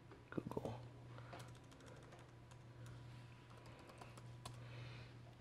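Typing on a computer keyboard: a quick, faint run of keystrokes.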